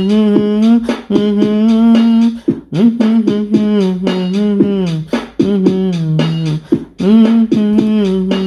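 Vocal music: one voice singing long held notes in phrases of one to two seconds, some sliding down in pitch at the end of a phrase.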